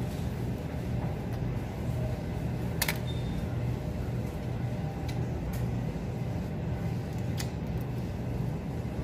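Steady low background hum with a few faint, sharp clicks from eating rice by hand off a metal plate.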